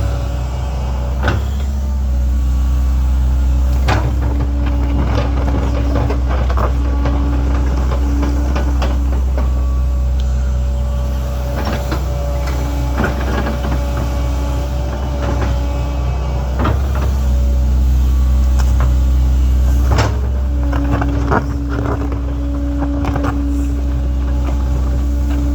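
Link-Belt 2700 excavator's diesel engine running steadily under load while it digs, with a hydraulic whine that comes and goes and scattered clanks and knocks from the bucket and machine, the loudest one about twenty seconds in.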